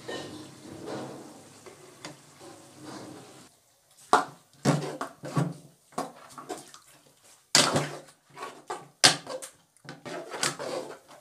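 Chicken curry sizzling faintly in a steel karahi for the first few seconds. Then a metal spoon scrapes and clinks against the pot in quick, irregular strokes as cream is stirred through the chicken.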